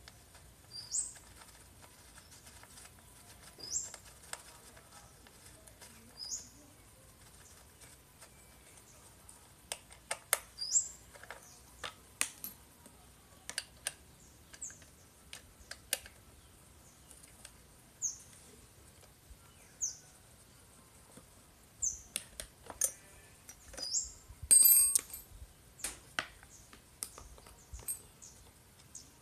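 Scattered light clicks and metallic clinks of a screwdriver and small screws as the recoil starter housing is unscrewed from a type-58 chainsaw, with one louder ringing clink near the end. A small bird gives a short high chirp every couple of seconds.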